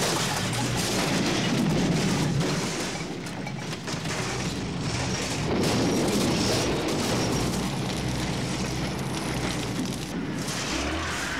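Loud, low rumbling and crashing of demolition: a tracked bulldozer knocking down corrugated-iron shacks. It swells about two seconds in and again about six seconds in.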